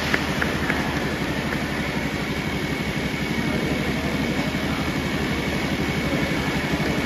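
A motor or engine running steadily, with a low, even, rapid throb.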